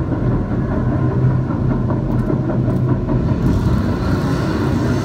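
Loud, steady low rumble of car engine sound, with no clear beat.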